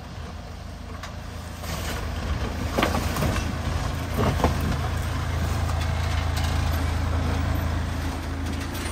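A 4x4 SUV's engine running on an off-road track, getting louder about one and a half seconds in and then holding steady under load. Two brief high-pitched sounds come about three and four and a half seconds in.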